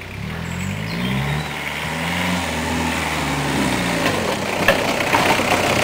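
Peugeot 306 1.9 turbo-diesel engine revving as the car drives through the woods, its pitch rising over the first two seconds or so and falling away again, growing louder throughout.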